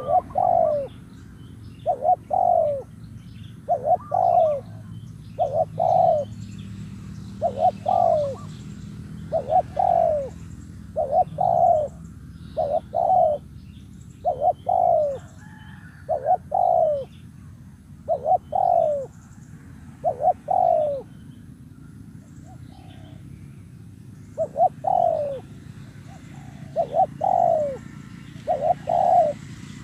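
Spotted dove cooing: a long run of short, loud, falling coo notes, one every second or so, pausing briefly about two-thirds of the way through. Faint chirps of small birds and a low hum lie behind.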